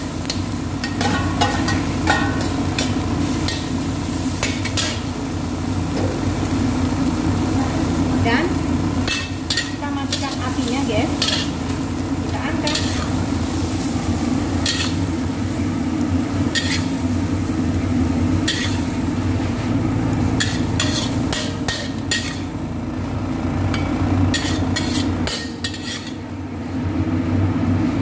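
Metal spatula scraping and clanking against a metal wok as cucumber strips and scrambled egg stir-fry and sizzle, then are scooped out into a bowl. A steady low hum runs underneath, and the scrapes thin out near the end as the wok empties.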